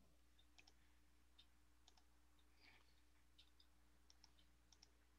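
Near silence: about a dozen faint, scattered computer mouse clicks over a low steady hum.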